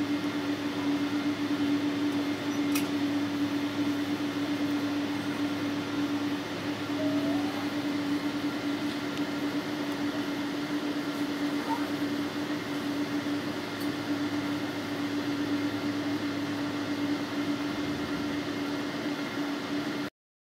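Cabin noise inside a jet airliner taxiing after landing: a steady hiss with one steady drone. It cuts off suddenly near the end.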